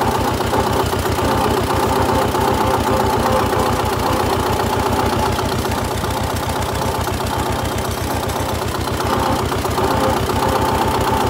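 Zetor 25 K tractor's two-cylinder diesel engine running steadily at a low, even beat, warmed up with the coolant at 80 °C.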